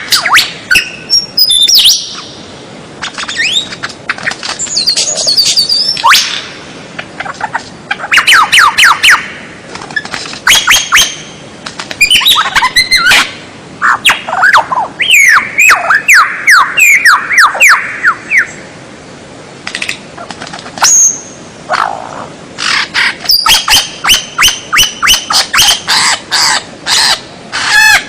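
Songbird calls in quick, varied phrases: sharp chirps, whistles and rattling notes, with a run of rapid falling notes around the middle. This is a mixed bird-sound tutor recording used to teach a white-rumped shama new songs.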